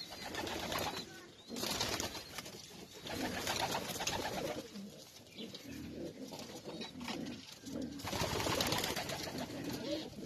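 Racing pigeons cooing with low, rolling calls. Louder bursts of rustling noise come twice, about a second and a half in and again near eight seconds.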